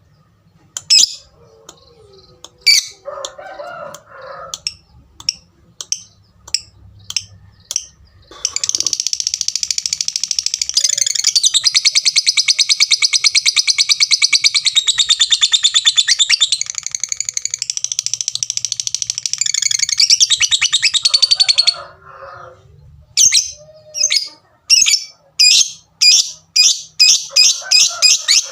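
Lovebird singing in the 'fighter' style. It gives a string of separate sharp 'tik' notes, then about eight seconds in a long unbroken rapid chatter ('ngekek') that lasts some thirteen seconds. The ticking then resumes and quickens near the end.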